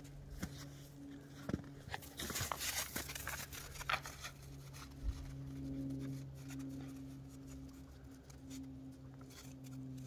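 Paws scuffling and crunching in snow as a fox and a border collie play, a crackly patch of scuffs about two to four seconds in, over a steady low hum.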